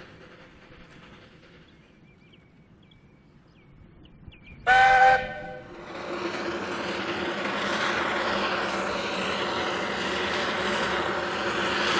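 Narrow-gauge steam locomotive's whistle sounds once, a single blast of about a second, a little under five seconds in. Then the locomotive's working noise builds and grows louder.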